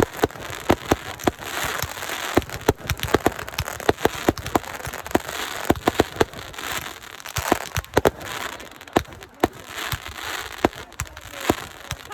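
Consumer fireworks going off: a long run of sharp, irregular bangs with crackling in between.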